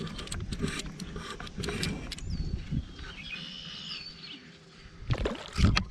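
A hooked live cicada fluttering close to the microphone, making irregular crackling clicks, with a faint bird chirp in the middle and a low thump near the end.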